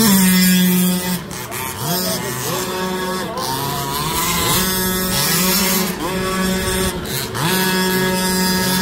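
Small two-stroke petrol engine of a 1/5-scale RC car, running at high revs and repeatedly dropping off and rising again as the throttle is lifted and reopened through the turns.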